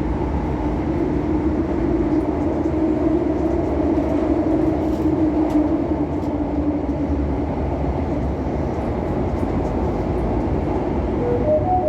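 CAF Série 500 Fase II metro train running steadily along the line, its hum swelling and fading midway. Near the end a short stepped chime of a few notes sounds.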